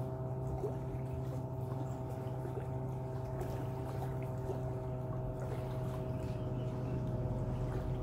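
A distant motorboat engine droning at one steady pitch, with small waves lapping at the shore.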